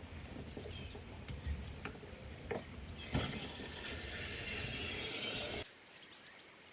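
A few light clicks and knocks, then, about three seconds in, water rushing out under mains pressure as the line is turned back on after a repair, an even hiss that cuts off suddenly about two and a half seconds later.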